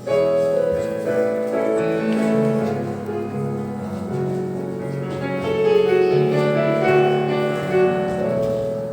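Instrumental keyboard music with held, melodic chords, the introduction to a Christmas hymn.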